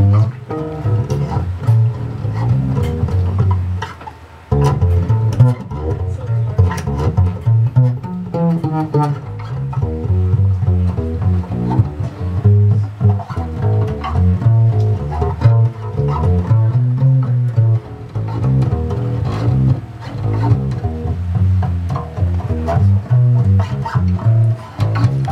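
Double bass built from a grandfather clock case, plucked in a line of low notes. It is amplified through a bass amp by a magnetic sound-hole guitar pickup. The playing breaks off briefly about four seconds in.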